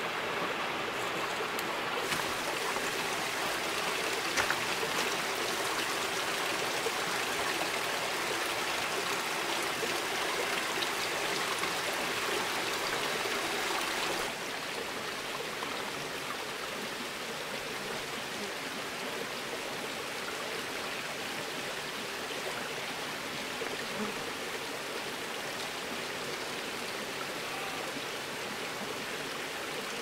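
Shallow rocky stream running, a steady rush of water that becomes a little quieter about halfway through.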